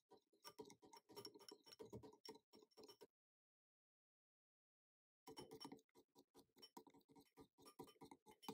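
Wire whisk stirring thick cream cheese batter in a glass bowl: quiet, rapid clinking taps of the wires against the glass. It comes in two spells, broken by about two seconds of dead silence.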